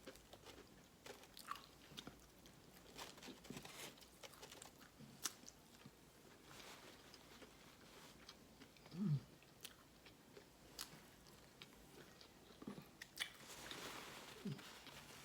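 Close-miked chewing of a soft cornmeal hush puppy: faint scattered smacks and mouth clicks, with one brief low hum near the middle.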